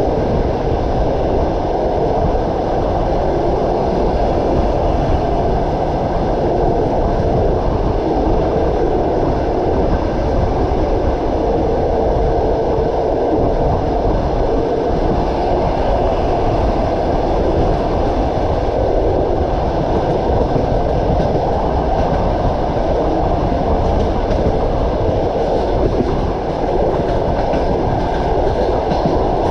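Train running steadily along the track, wheels clattering on the rails with a continuous rumble.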